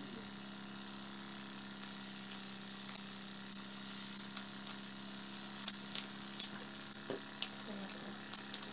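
Small homemade vertical model steam engine running steadily off its vertical boiler: a constant hum under a high steady hiss, with a few faint ticks in the second half.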